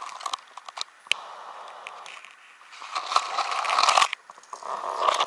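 Lighting kindling in the fire base of a Kelly kettle camp stove: a few sharp lighter clicks, then a rising rustling, crackling noise that stops suddenly about four seconds in and starts again near the end.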